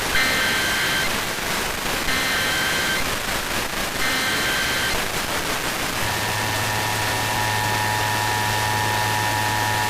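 Emergency Alert System test tones: three one-second bursts of SAME header data tones about a second apart, then from about six seconds in the steady two-tone EAS attention signal, all over a constant hiss of static.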